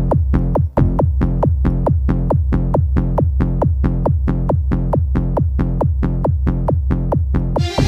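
Electronic dance music with a steady, pounding kick drum at a little over two beats a second. It drops out for a moment just under a second in, and brighter synth and cymbal sounds come in near the end.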